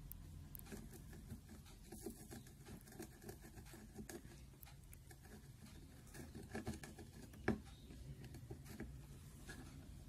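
Faint scratching with small irregular ticks as a soldering iron is worked with copper desoldering braid over the pads of a TV mainboard, clearing old solder where the IC will go. A single sharp click comes about seven and a half seconds in.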